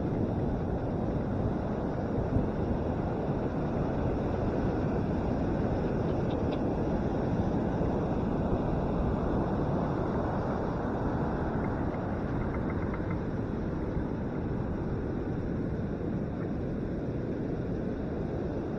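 Steady low rushing noise of wind on a bicycle handlebar camera's microphone as the bike rides along the beach, mixed with the surf breaking nearby.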